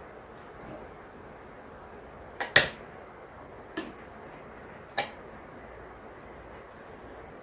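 Painting tools being handled on a desk: a few sharp clicks and taps over steady room hiss, a loud double click about two and a half seconds in, then single ones roughly a second apart.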